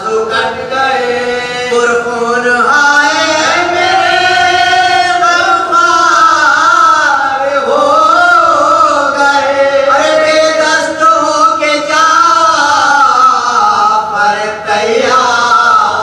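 A man chanting an elegiac Urdu lament in long, wavering held notes that slide up and down in pitch.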